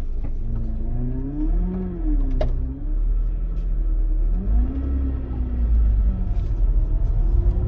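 1995 Honda Civic Si's 1.6-litre VTEC four-cylinder engine heard from inside the cabin while pulling away, its revs climbing and dropping back twice as it goes up through the manual gears, over a steady low road rumble. A short click comes about two and a half seconds in.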